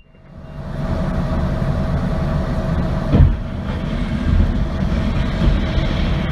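Steady rumble of a moving vehicle, fading in over the first second and running with a steady hum, with one short knock about three seconds in.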